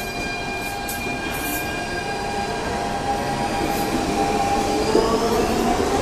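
A DSB Litra SA S-tog electric train running past at close range: a steady electric whine of several pitches over wheel-on-rail rumble, growing louder as the train draws level, with the rumble getting rougher about five seconds in.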